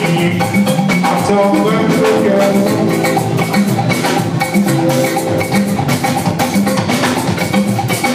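Band music with busy percussion and a steady beat under pitched instrumental lines.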